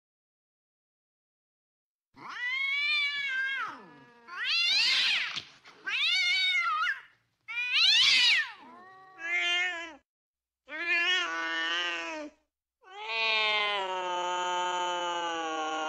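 Domestic cats caterwauling while mating: about seven long, wavering yowls that rise and fall in pitch, starting about two seconds in, the last held for about three seconds.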